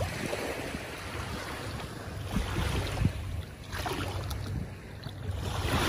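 Wind buffeting the microphone over small waves lapping in shallow bay water, rising and falling in gusts.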